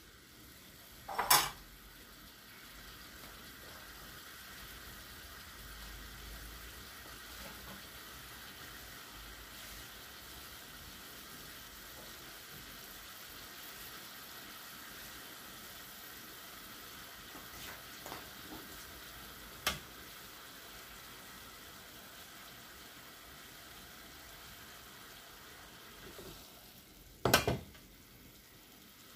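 Beef frying in butter and olive oil in a small pan, a steady sizzle. A sharp knock of a metal spoon sounds about a second in, another near the end, and a lighter click midway.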